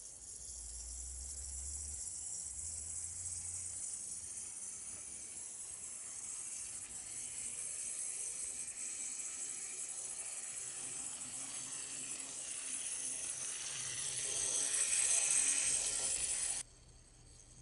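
Tamiya mini motor low-speed gearbox in a toy C11 steam locomotive running, a steady high whirr with a light rattle of the wheels on plastic track. It grows louder as the locomotive comes close, then cuts off suddenly about a second before the end.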